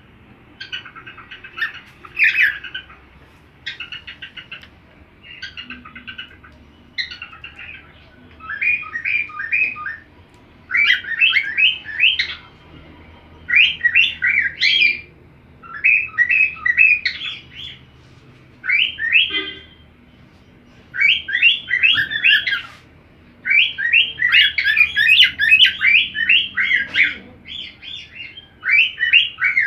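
Cockatiel singing: phrases of quick repeated chirps, each a second or two long, with short pauses between them.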